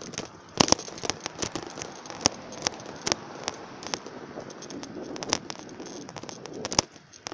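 Phone propped loosely on a bicycle handlebar rattling and knocking against the bars as the bike rolls: irregular sharp clicks, about two a second, over a steady rushing noise.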